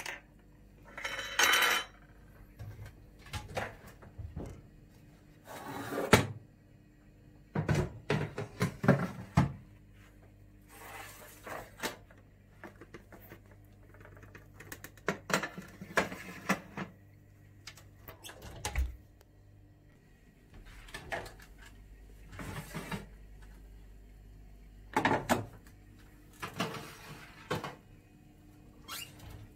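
Metal baking trays being handled in a kitchen: a series of separate knocks, clunks and scrapes as they are set on the stove's grates and slid onto oven racks.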